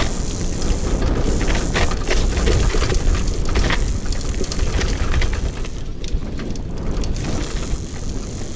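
All-terrain wheelchair rolling fast down a dirt and gravel track: a steady rumble from the knobby tyres, with frequent crackles and rattles from stones and the frame.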